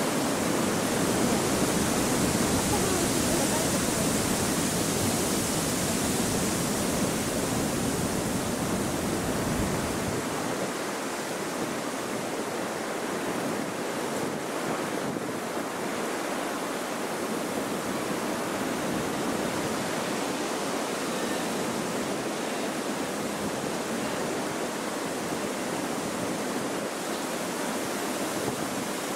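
Strong wind rushing and buffeting the microphone with a low rumble, which drops away about a third of the way in and leaves a steady, lighter rush.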